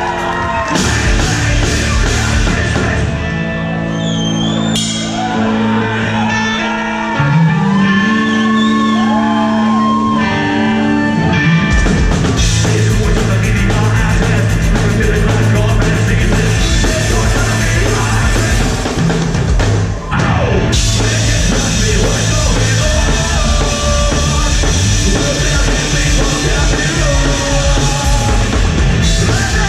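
Punk rock band playing live in a large hall: held notes at first, then the drums and full band come in about twelve seconds in.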